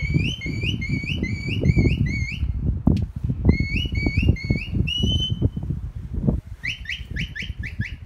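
A shepherd's whistled commands to a working sheepdog: quick rising whistles, about three a second, in two runs, one longer held whistle about five seconds in, then a faster run of short rising whistles near the end. Wind buffets the microphone underneath.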